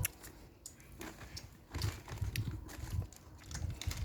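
Quiet crinkling and clicking of plastic candy packaging being handled, mixed with low muffled bumps.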